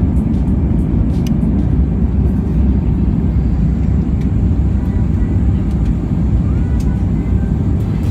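Airbus A320 heard from inside the passenger cabin: a loud, steady, low rumble of engine and airflow noise, with a few faint rattles.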